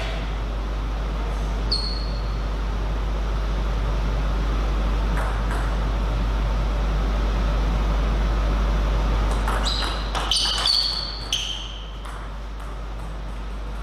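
Table tennis ball bouncing with sharp, ringing pings: one about two seconds in, then a quick run of bounces near the end. A steady low hum runs underneath.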